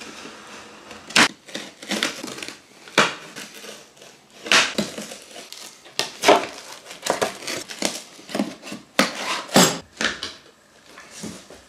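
A knife cutting the plastic strapping bands and slitting the packing tape on a cardboard box, then the cardboard lid being opened. Several sharp snaps and scrapes about every one to two seconds over cardboard rustling.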